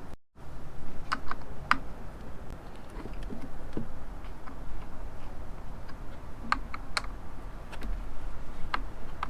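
Scattered light clicks and taps at an irregular pace, the sound of hands handling and knocking small hard parts.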